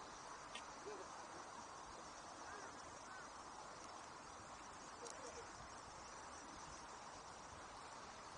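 Faint outdoor ambience: a steady, even hiss with a few faint short chirps scattered through it.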